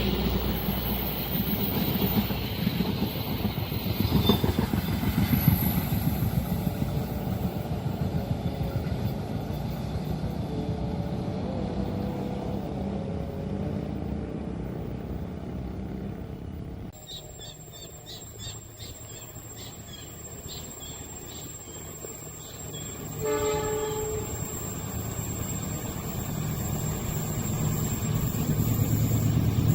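A train passing close at speed, a dense rumble and clatter of wheels on rail. About seventeen seconds in it cuts abruptly to a quieter scene with a regular faint ticking, a short horn note, and then the low rumble of another train building near the end.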